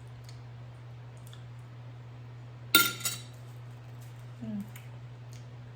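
Two sharp clinks, a eating utensil striking a dish, close together about three seconds in, over a steady low hum.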